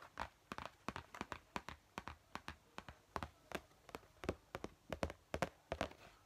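A fast run of sharp paper clicks and crinkles, about five a second, from hands handling a stiff printed paper letter.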